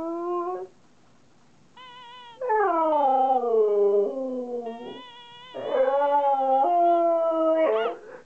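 A husky howling and 'talking': a run of drawn-out, wavering howls whose pitch slides down and up. After a brief pause about a second in, a fainter high call comes, then several long howls close together, the last one rising and falling quickly near the end.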